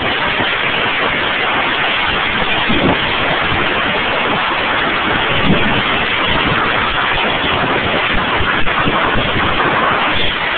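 Compressed air blasting from an air hose nozzle: a loud, steady hiss.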